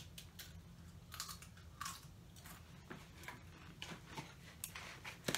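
A person crunching and chewing a chip in their mouth, with a string of short, irregular crunches.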